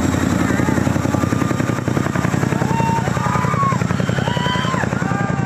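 Indian Air Force Chinook tandem-rotor helicopter flying low and moving away, its rotors making a fast, steady blade thudding. Shouts from the crowd rise above it.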